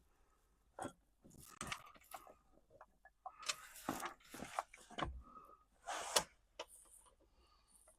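Hand tools and loose dash parts being handled: scattered clicks, knocks and brief rustling, with no steady rhythm.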